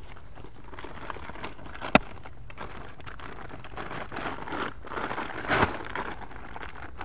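Printed plastic rice sack rustling and crinkling as bunches of green bananas are pushed into it, with a single sharp click about two seconds in and the loudest rustling near the end.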